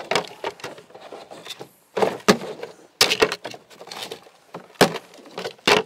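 Plastic sap-bucket covers knocking and clattering as they are gathered and stacked by hand, about half a dozen sharp knocks, the loudest near the end.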